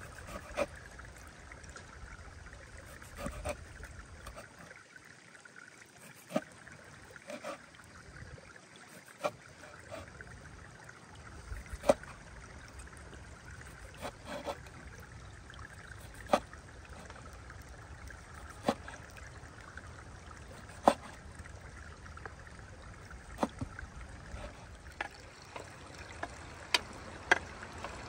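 Water trickling steadily, with single sharp clicks or taps every second or two.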